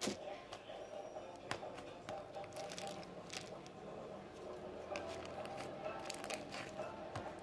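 Butter slime being mixed by hand: scattered soft squishes and sticky clicks, over faint background music.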